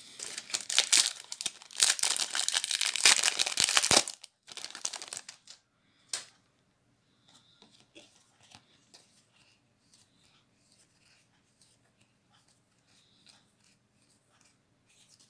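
Foil booster pack wrapper of a Magic: The Gathering pack crinkling loudly as it is torn open, for about four seconds. After that, only a sharp click and faint soft ticks as the trading cards are slid through the hands.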